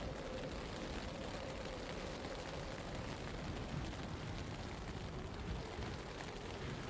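Steady wind and snow noise of a blizzard in a city, with a low rumble underneath and a faint hum that fades out about three seconds in.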